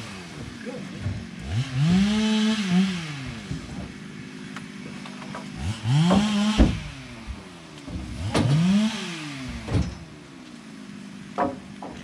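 A small engine revving up and dropping back four times, each rev held for about a second, over a steady engine running underneath. Sharp wooden knocks, about three of them, come as logs are dropped onto the load.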